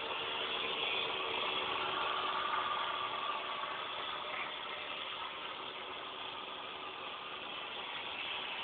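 Radio-controlled toy speedboat's motor running steadily: an even hiss with a faint whine that wavers in pitch, fading a little midway and picking up again near the end.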